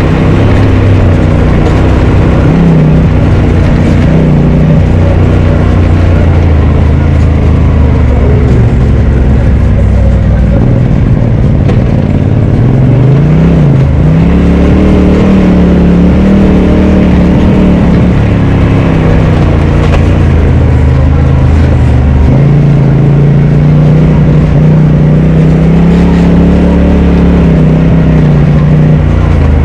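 Polaris RZR Turbo side-by-side engine running loud on the trail, its pitch rising and falling with the throttle, with a brief drop in revs about twelve seconds in.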